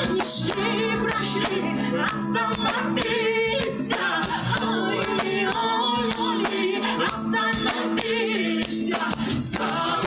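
Russian folk band playing a song: sung voices over held instrumental notes, with a steady percussive beat.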